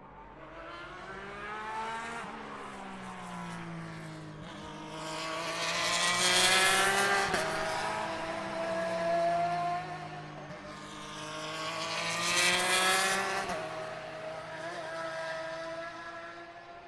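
GT Le Mans race cars going past trackside, their engines changing pitch in sharp steps at gear changes. The two loudest passes come about six and twelve seconds in.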